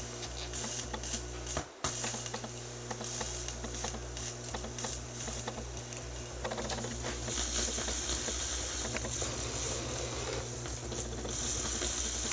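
Loudspeakers buzzing, hissing and crackling as a plasma lamp's high-voltage field is picked up through bare skin, carried to the exposed metal tip of an audio cord plugged into them: a steady low hum with crackly hiss on top. It cuts out briefly about two seconds in and grows louder in the second half.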